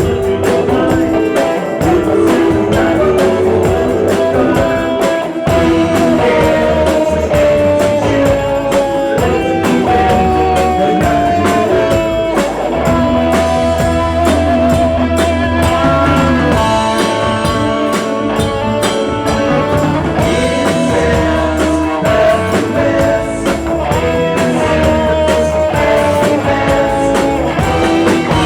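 Guitar-led rock music playing continuously, with a steady bass line and a faint voice singing.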